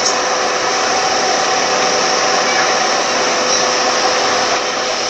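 Car air-conditioning blower fan running steadily: an even rush of air with a faint steady hum underneath.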